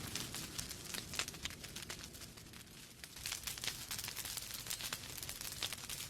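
Wood fire burning in a fireplace, with irregular crackles and small pops over a low steady rumble of the flames; the crackling thins out briefly around the middle.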